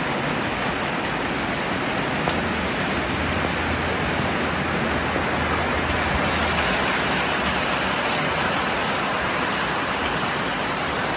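Heavy rain falling steadily on corrugated metal roofs, an even, dense hiss.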